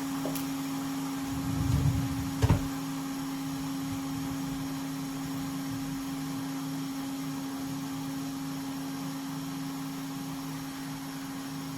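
Steady electric fan hum of bench rework equipment, with a single sharp click about two and a half seconds in.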